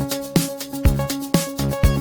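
Background electronic dance music: a steady kick drum about twice a second under sustained synth tones.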